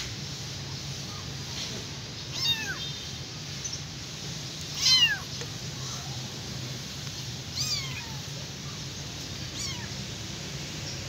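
A tiny kitten meowing loudly, the cries of a lost, abandoned kitten: four short high meows, each falling in pitch, about two to three seconds apart, the loudest about five seconds in.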